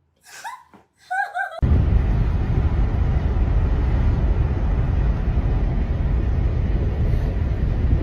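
A brief laughing voice, then an abrupt cut about a second and a half in to a loud, steady rumbling noise, heaviest in the low end.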